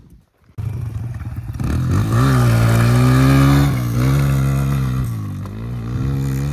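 Kawasaki 140 dirt bike engine running hard, starting abruptly about half a second in, its pitch rising and dipping several times as the rider revs and eases off.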